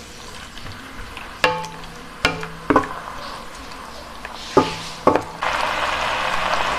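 Wooden spatula knocking and scraping against a nonstick wok about five times, the pan ringing briefly after each knock, over a low sizzle of beef and sauce frying. About five and a half seconds in, the sizzle suddenly gets much louder and keeps going.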